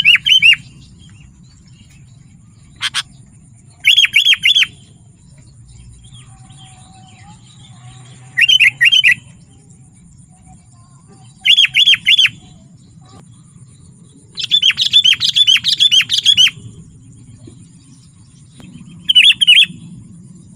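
Sooty-headed bulbul calling: short bursts of three or four quick chirping notes every few seconds, with one longer run of chirps about two-thirds of the way through.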